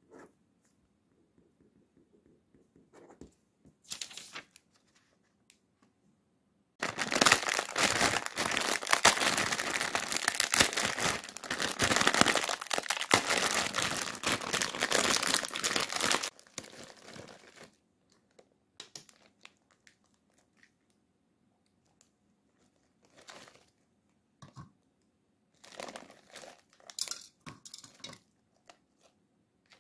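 Plastic instant-ramen packet crinkling and tearing as the dry noodle block inside is broken up, loud and continuous for about nine seconds from around seven seconds in. Near the end there are shorter crinkles and crackles as pieces of dry noodle are taken out and put into a plastic bowl.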